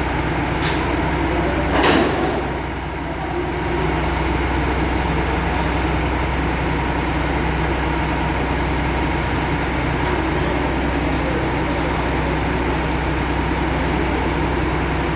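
Heavy crane's engine running steadily. It is broken by a sharp clank about two seconds in.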